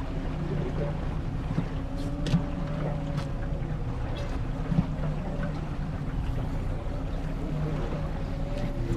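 Boat's outboard motor running steadily at a low, even speed, with wind noise on the microphone and a few faint clicks about two to three seconds in.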